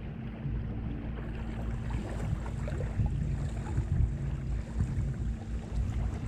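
Wind buffeting the camera microphone over small waves lapping at the pebble shoreline, with a steady low hum running underneath.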